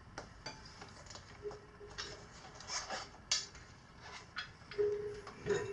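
Light clicks, rustles and short scrapes of hand work with a small metal valve tool and a rubber inner tube, scattered and irregular.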